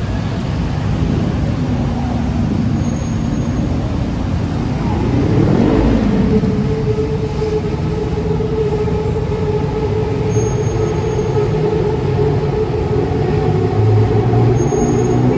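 Busy city road traffic at a junction: engines running and tyres on the road without a break. About five to six seconds in, one vehicle passes close by, its pitch dropping as it goes. From about eight seconds on, a steady engine hum comes in and grows louder near the end.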